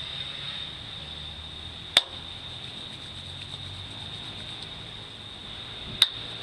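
Two sharp hand claps, about two seconds in and again near the end, over a steady high-pitched drone of insects.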